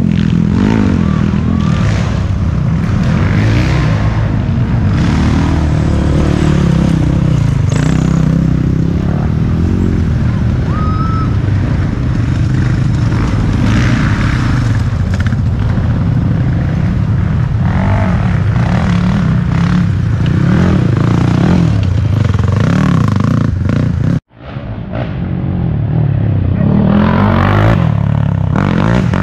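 Racing quad (ATV) engine running hard, its pitch rising and falling as the rider throttles on and off and shifts. The sound cuts out abruptly about 24 seconds in and returns within a second.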